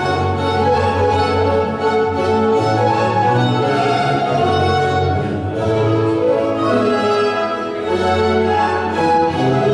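Baroque string ensemble music for a courante, violins playing a melody over a sustained bass line.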